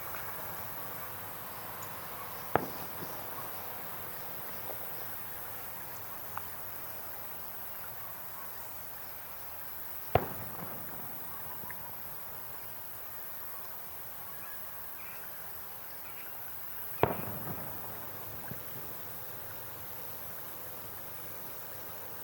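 Fireworks bursting overhead: three separate booms several seconds apart, each trailing off in echo and a few small crackles.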